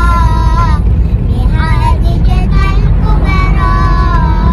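Young children singing together in long held notes, over the steady low rumble of a vehicle heard from inside its cabin.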